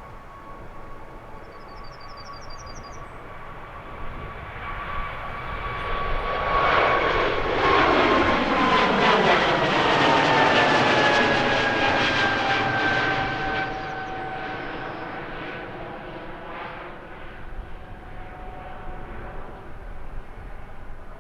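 Airbus A220-300 jet taking off on its Pratt & Whitney PW1500G geared turbofans: the engine noise swells over several seconds, peaks for about six seconds, then slowly fades as the jet climbs away. A steady high fan whine drops in pitch as the aircraft passes.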